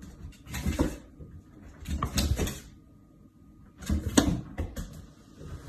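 A dog jumping up repeatedly against a kitchen cabinet, its paws bumping and scrabbling on the cabinet front and thudding back down: three bursts of knocks about two seconds apart, the last one busiest.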